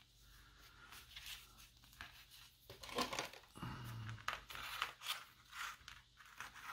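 Faint rustling and light handling noises: adhesive pads with paper backing being set down, then headset speaker cables being picked up and slid across cardboard, with a few small clicks.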